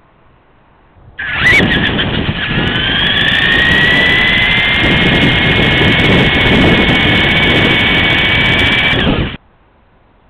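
LaTrax RC car's electric motor and gears whining as it drives at speed over a rough road surface, heard close up from the car itself. The sound starts suddenly about a second in. The whine climbs in pitch as the car speeds up, then holds, with a rough rumble from the wheels beneath, and it cuts off abruptly near the end.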